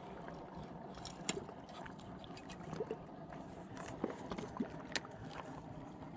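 Small waves lapping and trickling at the lake's edge, with a few scattered sharp clicks.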